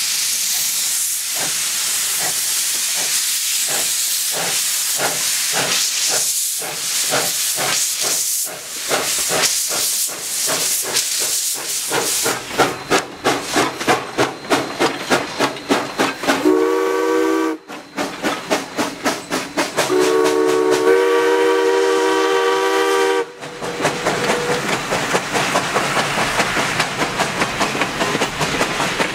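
Ohio Power & Light No. 3, a 0-6-0 steam switcher, working a passenger train past: steam hiss and exhaust chuffs that quicken, then a short blast and a longer blast on its whistle, sounding several notes at once, about halfway through. Near the end the coaches clatter by over the rail joints.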